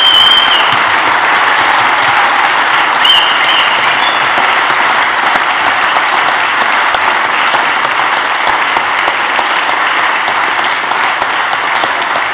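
Church congregation applauding, a sustained round of clapping that eases off slightly toward the end.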